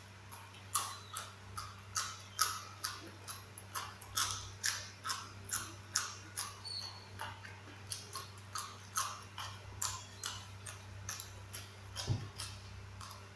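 A person chewing raw yardlong beans, crisp crunches coming steadily about two or three times a second.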